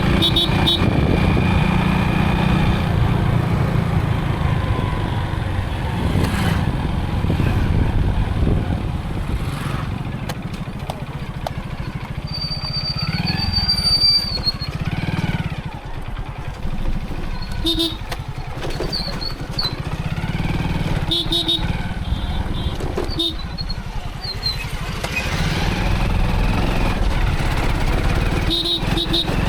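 A motorcycle engine running steadily while riding through town traffic, with a heavy low rumble throughout. Several short, repeated horn beeps sound over it in the second half.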